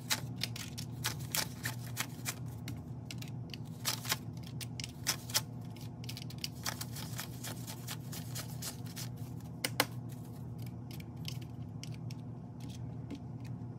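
Paper banknotes rustling and crinkling as they are handled and laid one by one into a clear acrylic cash tray, with scattered light taps and clicks throughout. A steady low hum sits underneath.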